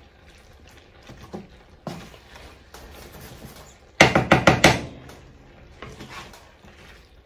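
Wooden spatula stirring chicken and peppers in a creamy sauce in a frying pan, a soft scraping and squishing, then about four seconds in a quick run of five or six sharp wooden knocks as the spatula is tapped on the pan.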